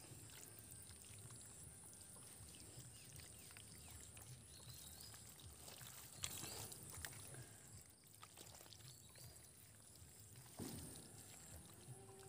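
Faint squelching and sloshing of bare hands digging through wet mud and shallow water, with a few slightly louder wet knocks about halfway through and near the end.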